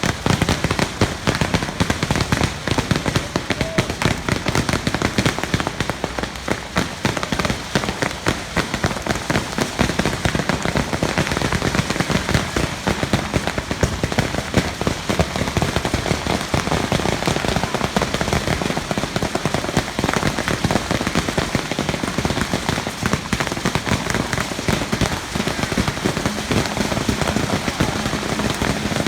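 Long strings of firecrackers going off in a continuous, rapid crackle of small bangs, without a break.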